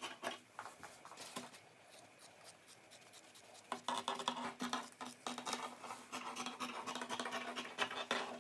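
Scissors cutting through two layers of fabric: a run of crisp snips and rustling. It is sparse and quieter for a stretch, then close and steady from about four seconds in.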